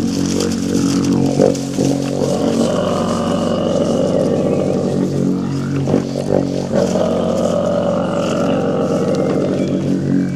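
A long didgeridoo played as a steady low drone, its overtones shifting as the player shapes the sound, with brief breaks about two seconds and six seconds in.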